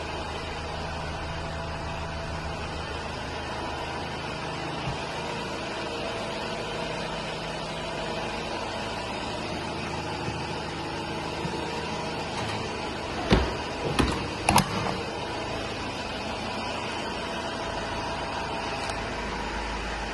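Iveco Daily 35S14 van's diesel engine running steadily at idle, with a short cluster of sharp knocks or clicks about two-thirds of the way through.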